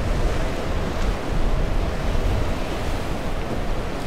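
Surf washing against the rocks of an inlet jetty, with wind buffeting the microphone as a rumble underneath.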